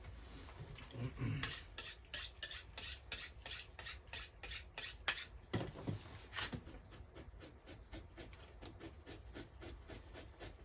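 Victorinox knife blade scraping fat and membrane off a beaver pelt while fleshing it: quick, regular rasping strokes, about four a second, louder in the first half and lighter later.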